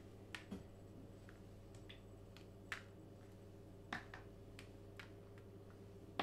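A paintbrush being dipped in a plastic developer tray and flicked at a plastic stencil on paper: a scattered series of faint ticks and taps, over a low steady hum.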